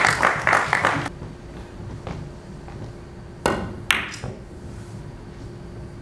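A carom billiards shot: about three and a half seconds in, the cue strikes the cue ball, with a second sharp click of ball against ball under half a second later. Before it there is a quick patter of short taps that stops about a second in.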